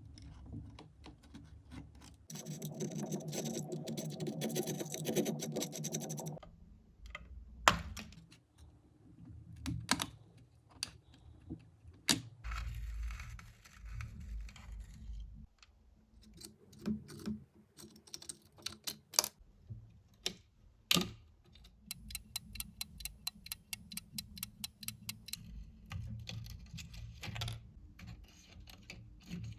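Small parts of a diecast scale model car being worked by hand: scattered sharp clicks and taps, with a few seconds of buzzing about two seconds in and a quick run of even clicks near the end.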